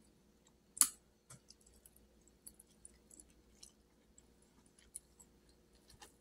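A person chewing chitterlings close to the microphone: soft, wet mouth clicks and smacks, with one sharper click about a second in.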